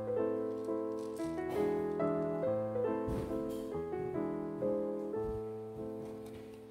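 Background piano music, a slow run of notes each fading after it is struck.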